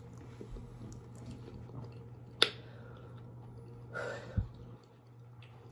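Close-up chewing and small mouth and eating noises over a steady low hum. A sharp click comes about two and a half seconds in, and a soft low thump just after four seconds.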